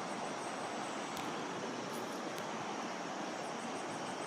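Steady outdoor rushing noise by a river, even throughout, with a few faint clicks.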